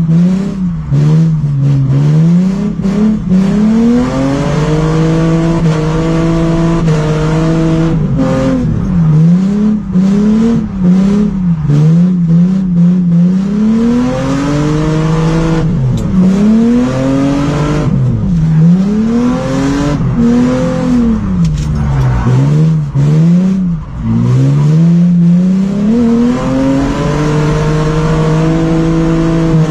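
Mercedes C280 (W202) engine, exhaust open from the catalytic converter back, heard from inside the stripped cabin, its revs repeatedly climbing and dropping with short stretches held steady.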